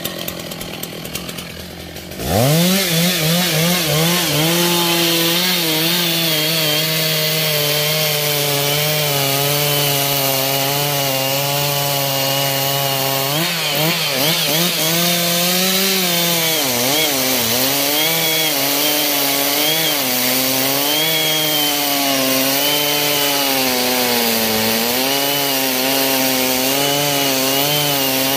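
Large two-stroke chainsaw revving up to full throttle about two seconds in, then cutting through a thick rain tree (trembesi) trunk. Its pitch wavers and sags as the chain bites into the wood under load.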